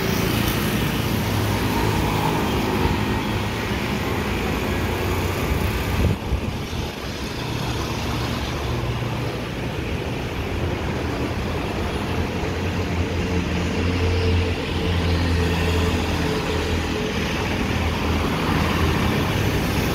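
Road traffic: cars and motorcycles driving past at a junction, with a steady wash of engine and tyre noise and engine hum rising and falling as vehicles pass. A brief knock comes about six seconds in.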